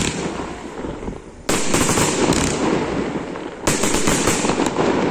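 Aerial fireworks display: shells bursting with sharp bangs, one about a second and a half in and a quick run of several more toward the end. A dense crackling rattle carries on between the bangs.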